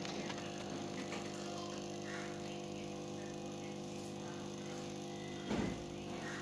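Aquarium air pump humming steadily, with faint bubbling from the air stones. A brief low thump about five and a half seconds in.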